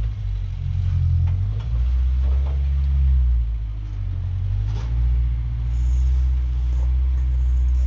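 Off-road truck's engine running at low speed, its pitch rising and falling a little as the throttle changes, with a few light knocks.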